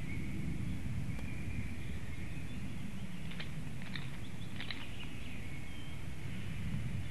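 Forest ambience: a steady low wind rumble with faint distant birdsong, and a few short, sharp chips or clicks around the middle.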